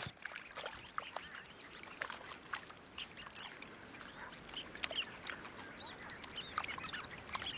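A flock of migratory waterbirds calling, many short high calls and chirps overlapping, fairly faint.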